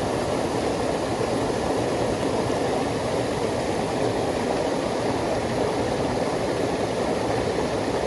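Mountain stream water rushing and splashing over rocks at a small cascade: a steady, even rush with no change.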